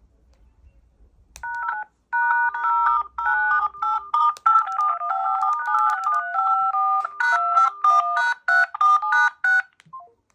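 Mobile phone ringtone: a quick, bright melody of short electronic tones. It starts about a second and a half in and stops shortly before the end.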